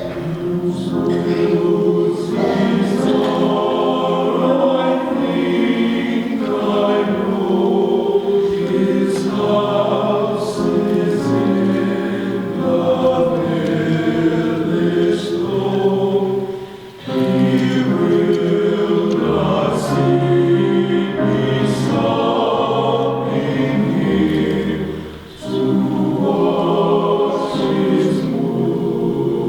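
High school men's chorus singing in parts, sustained phrases with two short breaks between them, about 17 and 25 seconds in.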